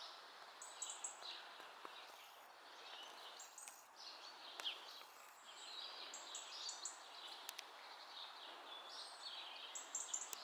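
Several small birds chirping and singing in overlapping short phrases, faint, over a steady background hiss.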